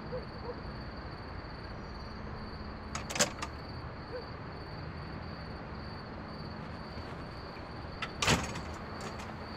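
A few sharp knocks on a wooden front door about three seconds in, then a latch clicking and the door opening about eight seconds in, over a steady faint hiss.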